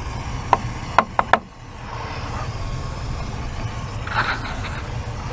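Pickup truck engine running at a steady low idle while an aerosol is sprayed into its air intake, with a short spray hiss just after four seconds in. A few sharp clicks come in the first second and a half.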